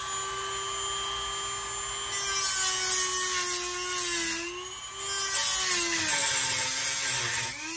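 A small handheld power tool running at high speed with a steady whine, cutting into a metal door strike plate clamped in a vise. From about two seconds in a loud hiss of metal being cut joins the whine, breaking off briefly in the middle. The motor's pitch sags each time the tool bears down.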